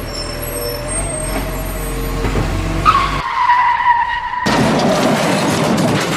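Vehicle engine running steadily; about three seconds in, a tyre-skid squeal starts, slides slightly down in pitch, and cuts off abruptly about a second and a half later, followed by a rougher engine running.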